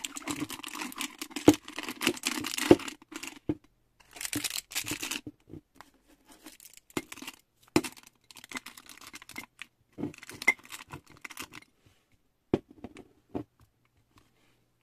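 Plastic snack wrappers crinkling and rustling as packaged sweets and a cookie pack are pushed into a glass jar, with a few sharp knocks of packets against the glass. The crinkling is dense for about the first five seconds, then comes in shorter, sparser bursts.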